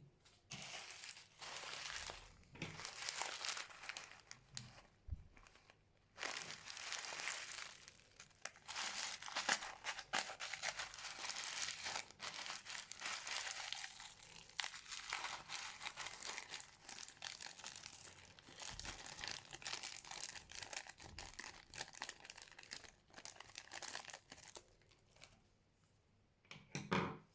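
Fluffy slime being stretched and squeezed by hand, a dense, continuous crackling of tiny pops and clicks. It pauses briefly about five seconds in and ends with a louder squish.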